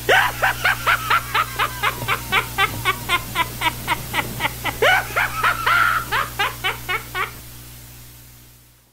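Rapid high-pitched laughter, a steady run of short falling bursts about four a second over a low hum, stopping abruptly about seven seconds in and then fading.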